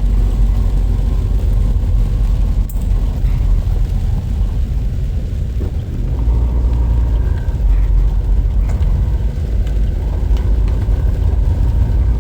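Heavy rain pouring down as a steady, loud, low rumble.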